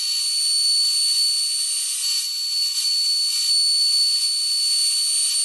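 Router table running a round-over bit along the edge of a wooden guitar body: a steady high motor whine over a hissing cutting noise, thin with no low end.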